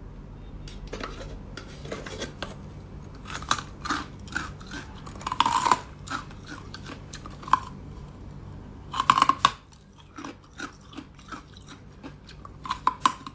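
Ice being bitten and chewed, with irregular sharp crunches and cracks. The loudest come about five and a half seconds in and again about nine seconds in.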